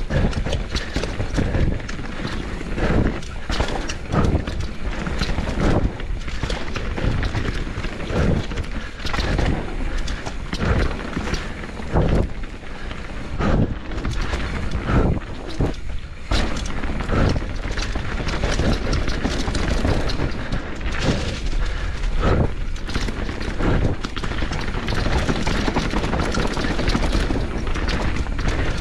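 Canyon Torque mountain bike riding down a dirt and stone trail: a continuous low rumble of tyres and riding noise, with frequent thuds and rattles as the bike hits bumps and rocks.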